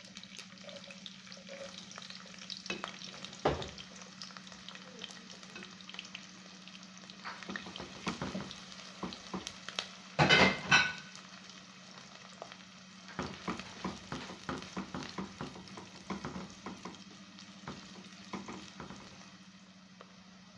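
Chopped onions sizzling and frying in hot oil in a pot, with scattered clicks and scrapes of a spoon stirring, loudest about ten seconds in. A steady low hum runs underneath.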